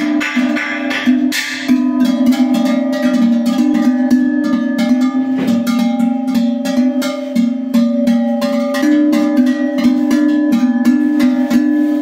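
Large sheet-iron goat bell (çan) shaken by its wooden handle, its clapper striking rapidly and irregularly over a deep, sustained ringing tone with higher overtones; the pitch shifts slightly twice as the bell swings.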